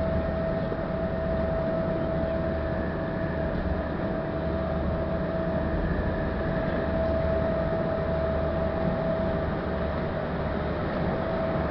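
Ferry's engine running steadily, a deep rumble with a constant whine over it and no change in speed.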